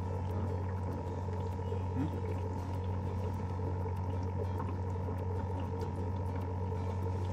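Steady low motor hum with a few fixed tones, unchanging throughout, from the fishing boat's motor running.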